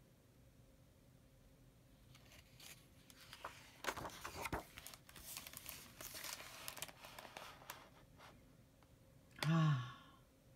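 Pages of a hardcover picture book being turned by hand: paper rustling and sliding with a few sharp flicks, starting about two and a half seconds in and lasting some five seconds. A brief sound of a voice comes near the end.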